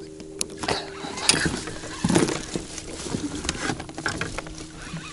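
Knocks, clatter and rustling of gear being handled in an inflatable boat, over a steady low hum; the loudest knock comes about two seconds in.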